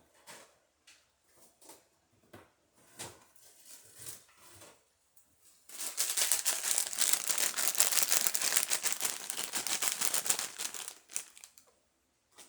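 Crinkling and rustling close to the microphone: a few soft rustles, then, from about six seconds in, some five seconds of loud, dense crackling.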